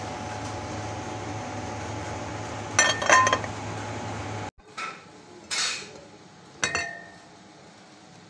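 Cookware clinking: a quick cluster of metallic clinks about three seconds in, then three separate knocks, the last one ringing briefly. A steady hum underneath cuts off abruptly about halfway.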